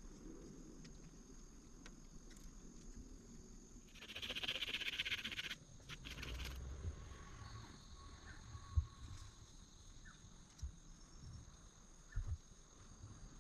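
Rainforest ambience: a steady high-pitched insect drone, with a loud rustling hiss lasting about a second and a half, four seconds in, and a few scattered soft knocks.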